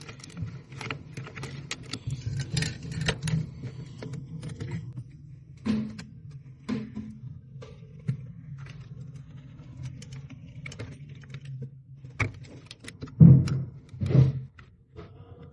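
Irregular clicking and rattling of small parts being handled, over a steady low hum, with two louder knocks near the end.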